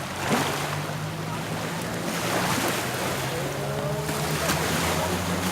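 Sea waves washing onto a sandy beach, with a steady low engine hum running underneath.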